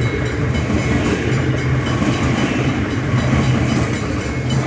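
Metro electric suburban train passing at speed, a loud steady rush and rumble of wheels on rail.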